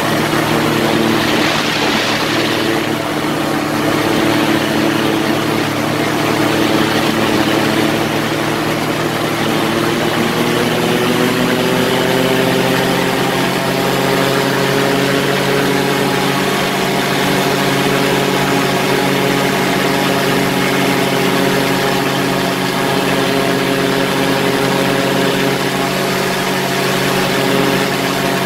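Quicksilver ultralight's engine and propeller running in flight: a steady drone whose pitch rises a little about ten seconds in and then holds. There is a brief louder rush of noise near the start.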